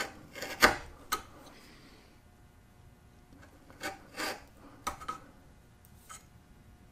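Small hand file rasping against the wood of a dovetail joint in several short, unevenly spaced strokes, the loudest about half a second in. It is trimming the joint a little at a time.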